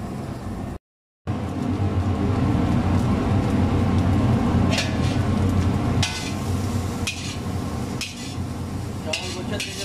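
Metal ladle scraping and knocking against a wok while fried rice is stir-fried, a few sharp scrapes in the second half over a steady low rumble. The sound cuts out briefly about a second in.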